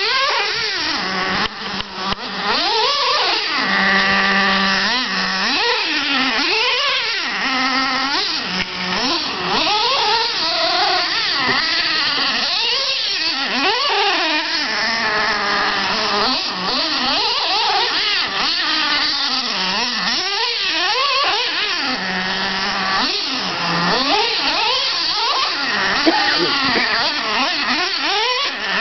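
Small nitro engines of radio-controlled trucks, among them a Traxxas Slayer's 3.3 two-stroke, running hard with rapid revving. The pitch sweeps up and down again and again, and at times two engine pitches overlap.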